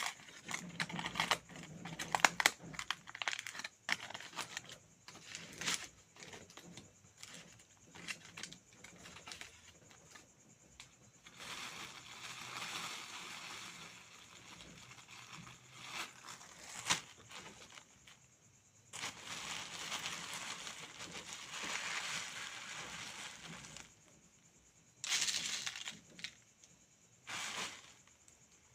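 Close-up eating sounds: food being chewed and crunched, with scattered short clicks and crackles and a few longer stretches of soft rustling hiss.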